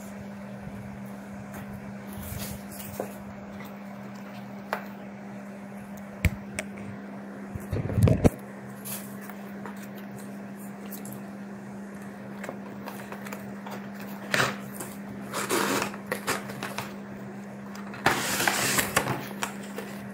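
Cardboard toy box being cut open and unpacked: scissor snips and clicks, a loud clatter of knocks about eight seconds in, then scraping and rustling as a cardboard-and-plastic tray slides out of the box. A steady low hum sounds underneath throughout.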